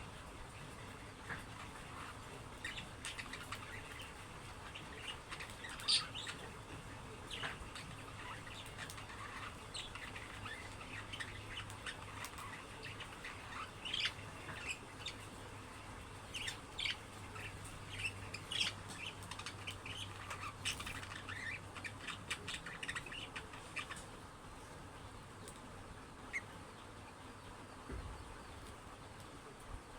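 Budgerigars chirping and chattering in many short, quick calls, busiest through the middle and thinning out near the end.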